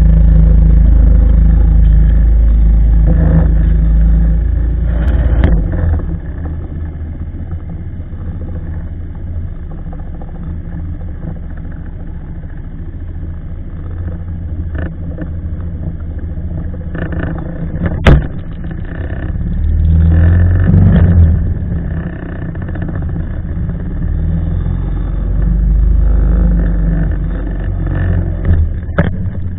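A small motorboat's engine running as the boat moves off, a steady low rumble that is loudest for the first five seconds or so and then settles lower. A single sharp knock comes about 18 seconds in.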